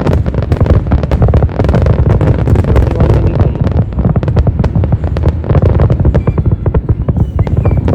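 Fireworks going off in a dense, continuous barrage: many sharp bangs and crackles a second over a deep rumble.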